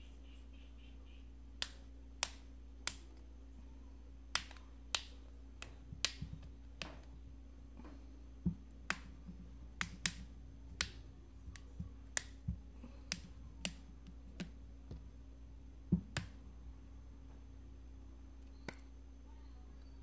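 Sharp plastic clicks and snaps, about two dozen in uneven succession, then one last click near the end, as the clips of an Oppo A39's plastic back housing are pried loose by hand. A steady low hum runs underneath.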